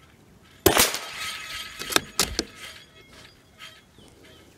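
A single .22LR shot from a Ruger Precision Rimfire bolt-action rifle, a sharp crack about two-thirds of a second in, followed by two quieter sharp clicks a little over a second later.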